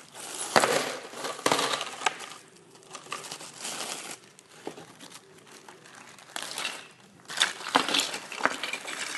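Plastic bags crinkling and rustling as small metal nuts and bolts are tipped out into a plastic tub and the bagged parts are handled, with scattered sharp clicks of hardware landing.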